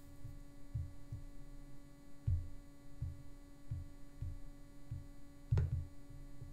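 Steady electrical hum with soft low thumps about every two-thirds of a second, and a single sharp click about five and a half seconds in.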